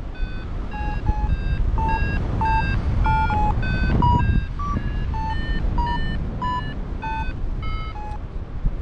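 Paragliding variometer beeping about twice a second, the pitch of its beeps rising and falling a little. This is the climb tone that signals the glider is rising in lift. Wind rumbles on the microphone underneath, and the beeps stop near the end.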